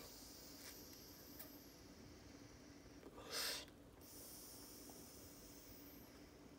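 Near silence while a person inhales slowly from a vape pen, broken about three seconds in by one short, sharp breath.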